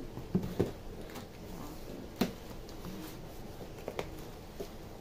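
A knife scraping along the tape and cardboard of a parcel as it is cut open, with a few sharp, irregular knocks from the box being handled.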